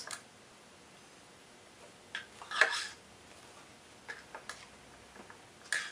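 A handful of light metallic clinks and taps, about five, as a screwdriver works in the timing-chain area of the engine's cylinder head and is drawn out. The loudest comes about two and a half seconds in.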